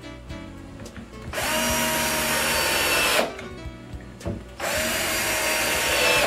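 Cordless drill/driver running in two steady runs of about two seconds each, driving screws through a plastic corner bracket into the cabinet panel. Background music plays underneath.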